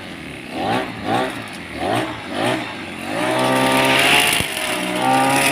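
Twin-cylinder two-stroke engine of a Robin NBT415 brush cutter revved in four short throttle blips, then held at high revs from about three seconds in.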